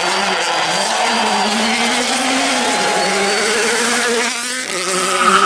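Hyundai i20 WRC rally car's engine running at high revs, its pitch wavering up and down under changing throttle. The sound dips briefly near the end, then picks up again.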